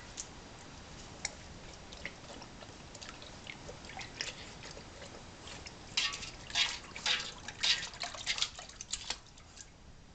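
Dog lapping water from a stainless steel bowl: wet slurps and splashes, sparse at first, then quicker and louder about six seconds in, stopping shortly before the end.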